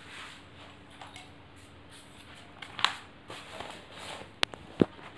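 Faint handling noise: light rustling with a steady low hum underneath, and a few sharp clicks, one a little past halfway and two close together near the end.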